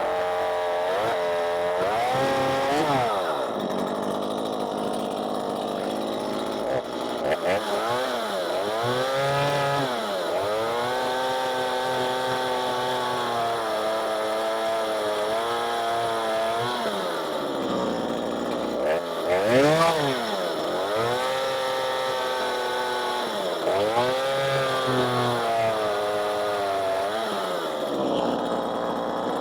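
Stihl MS 182 two-stroke chainsaw running, revved up and down again and again and held at high revs for several seconds at a time while it cuts a small piece of wood.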